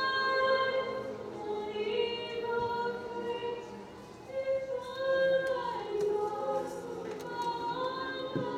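Choir singing a slow song in long held notes.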